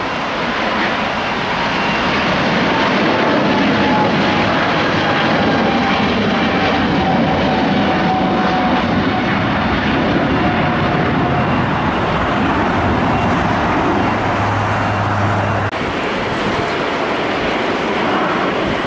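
A Boeing 777-300ER's twin GE90 turbofans at takeoff thrust as the airliner lifts off and climbs: loud, steady jet noise with a fan whine that slowly falls in pitch. Near the end it cuts to the lower engine noise of a jet airliner taxiing.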